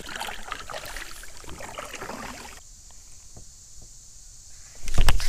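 Kayak paddle dipping and water splashing and trickling off the blade, with small knocks against the plastic hull. It settles down about halfway through, and a few loud knocks come just before the end.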